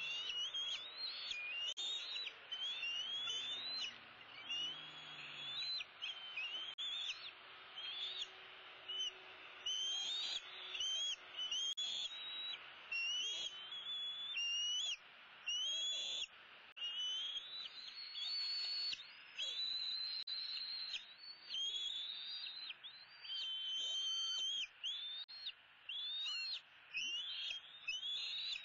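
Young bald eagle, an eaglet about ten weeks old, calling over and over in high whistled notes, mostly rising, about two a second with short breaks.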